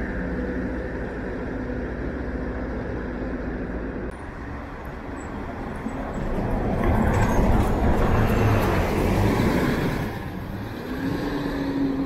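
City bus approaching and driving past close by in the bus lane, its diesel engine and tyres loudest for a few seconds past the middle, over steady street traffic noise.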